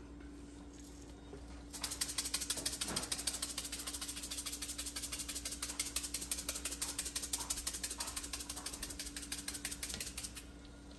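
Sea salt grinder being twisted, giving a long run of rapid, even crunching clicks that starts about two seconds in and stops just before the end.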